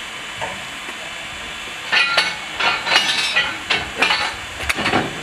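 Л-class 2-10-0 steam locomotive hissing steadily. From about two seconds in comes a quick, irregular run of sharp chuffs and metallic clanks.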